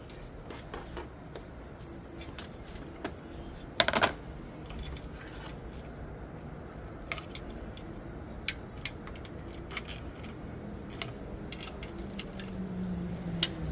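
Scattered metallic clicks and clinks of hand tools working on engine parts, with a louder clank about four seconds in.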